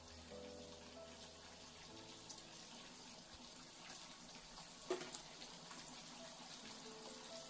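Mutton keema balls simmering in oil and their own juices in a kadai: a faint, steady bubbling and fine crackle. A single sharp click about five seconds in; soft background music notes underneath.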